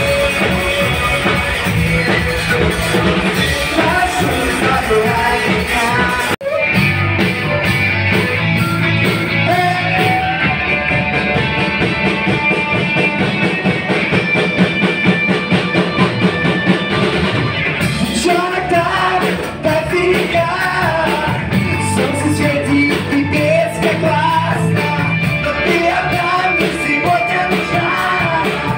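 Live rock band playing a song with sung vocals, drums, bass and guitar, with a momentary break in the sound about six seconds in.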